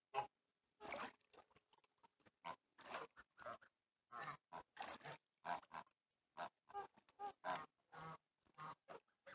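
Domestic geese in a flock calling with short, low honks and gabbling, about two calls a second, spaced unevenly.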